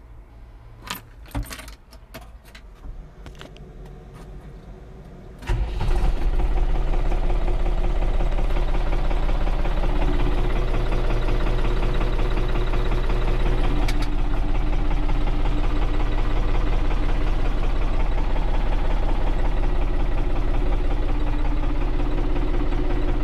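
Keys jingling and clicking in the ignition of a Case JX1070C tractor. About five seconds in, its diesel engine starts suddenly and settles into a steady idle, heard from inside the cab.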